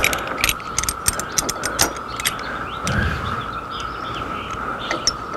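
Carefree manual RV awning end head clicking as its torsion spring is wound up with pliers: a quick, uneven run of about ten sharp clicks in the first two seconds and two more near the end, over a steady high hum.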